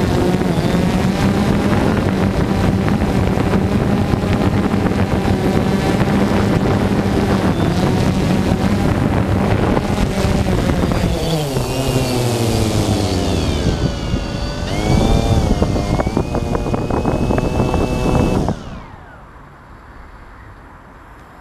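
Multirotor drone's electric motors and propellers buzzing steadily in flight, then dropping in pitch as it sets down, with a brief rise in pitch about 15 seconds in; the motors cut off suddenly near the end.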